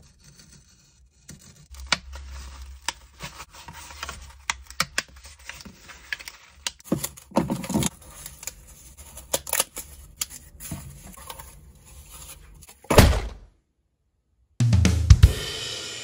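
A hobby knife scores cardboard along a steel ruler in a run of scraping cuts and clicks, with the cardboard rustling as it is handled. Near the end a loud whoosh-hit is followed by a moment of silence, then a booming hit that rings away slowly, a transition sound effect.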